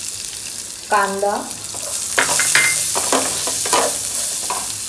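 Diced red onions sizzling in hot oil in a frying pan, with a wooden spatula stirring them. From about two seconds in, the spatula strokes against the pan come in quick succession over the steady sizzle.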